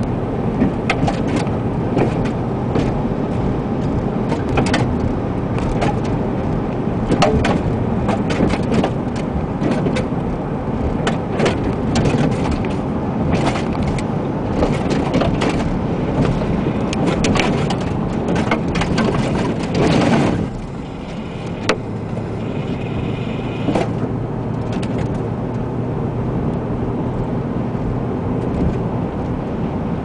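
Windstorm and road noise heard from inside a moving car: a steady, loud rush of wind buffeting the car, with frequent sharp ticks and knocks of blown debris striking it. About two-thirds through comes a louder rush, after which the noise eases slightly.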